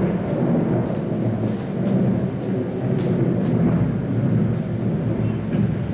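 Recorded thunderstorm sound effect: thunder rumbling continuously under rain, with scattered faint ticks of raindrops.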